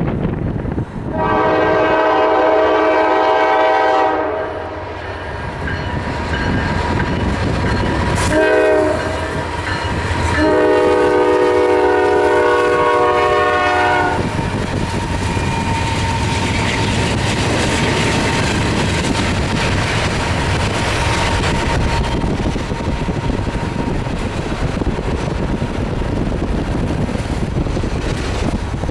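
Norfolk Southern freight locomotive's air horn sounding a long blast, a short one, then another long blast over the rumble of the moving train. After that the double-stack freight cars roll past with a steady rumble and wheel noise.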